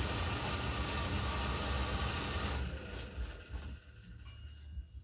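Combustion blower fan of an Axeman-Anderson 130 coal stoker running with a steady whir and low hum, then switching off about two and a half seconds in and spinning down over about a second. A few faint ticks follow.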